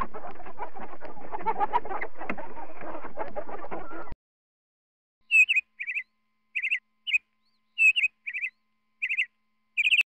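A flock of chickens clucking, cut off sharply about four seconds in. After a second of silence, a small bird gives eight short, high chirps, each a quick trill of two or three notes.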